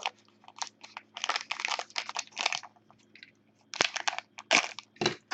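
Trading card packs and their wrappers being handled and opened, crinkling and rustling in short, irregular bursts.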